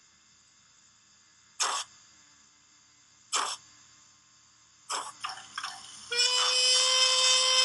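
Factory-fitted sound of a Rails of Sheffield/Bachmann OO gauge Caledonian 812 class steam locomotive model, played through its onboard speaker: two short hisses of steam a couple of seconds apart, a quick run of shorter hisses, then about six seconds in a long steady whistle blast.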